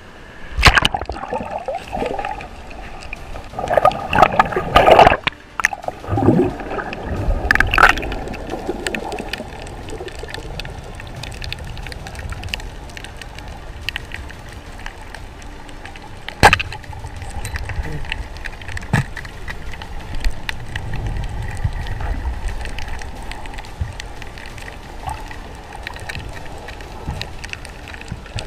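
Water splashing and sloshing around a snorkeling diver at the surface for the first several seconds, then the muffled, gurgling underwater noise heard through a submerged camera housing, broken by a few sharp clicks.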